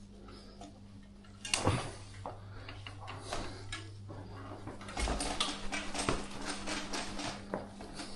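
Small tools and metal bike parts being handled: a sharp knock about a second and a half in, then a quick run of clicks and rattles in the second half. A steady low hum runs underneath.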